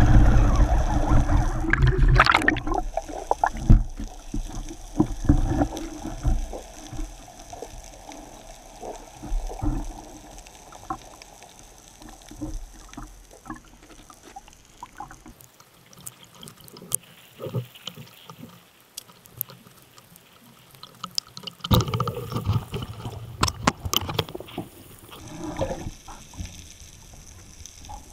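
Underwater water noise around a camera mounted on a speargun: rushing and bubbling as a freediver moves through the water, with scattered small clicks and knocks. It is loudest at the start and again for a few seconds past the middle, with a quieter stretch between.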